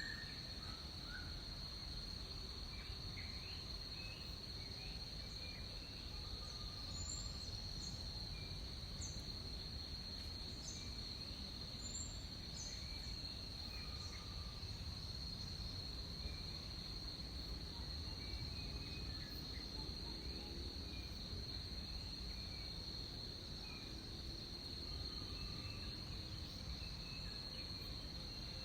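Tropical rainforest ambience: a steady high-pitched insect drone, with scattered short bird chirps and calls throughout, over a low, even background rumble.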